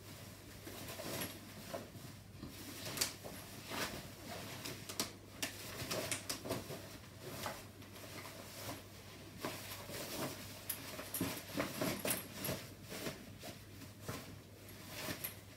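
Stroller canopy fabric rustling and its thin plastic struts clicking and scraping as they are slid into the fabric channels, in irregular small handling noises.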